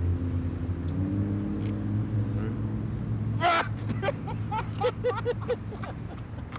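Steady low hum of a car engine running close by, with two men laughing heartily over it from about three and a half seconds in, in quick repeated pulses.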